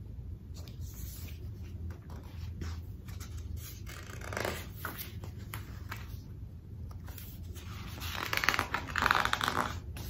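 Paper rustling and scraping as the pages of a large picture book are handled and turned, loudest for a couple of seconds near the end, over a low steady hum.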